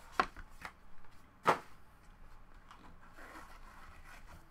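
A few sharp clicks and knocks as a cardboard card box and hard plastic card holders are handled, the loudest about a second and a half in, followed by a soft rustle.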